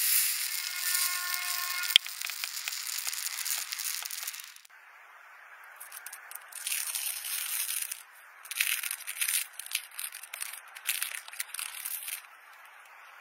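A hissing scrape with one sharp click about two seconds in, then, from about five seconds, a dried glitter peel-off film being peeled from skin: irregular crackling, tearing bursts as it lifts away.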